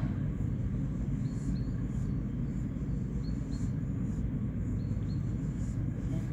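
Diesel locomotive engine running steadily at low revs, a constant low rumble.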